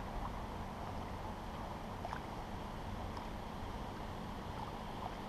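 Steady wind rumbling on the microphone with lapping water, and a few faint small splashes or ticks from the water and tackle as a hooked carp is played close to the bank.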